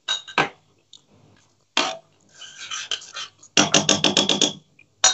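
A metal spoon scraping and knocking against a pan of thick curry, with a few single clicks, a scrape, then a quick run of about ten clinks over a second.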